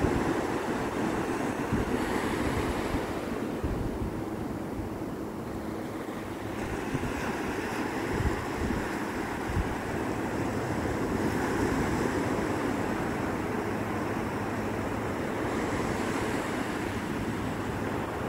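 Ocean surf breaking and washing up a sandy beach in a steady wash of noise, with wind buffeting the microphone.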